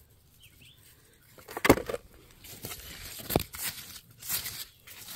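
Hands and a tool digging in dry red clay and gravel: scraping and rustling with two sharp knocks, the louder one just under two seconds in and another about a second and a half later.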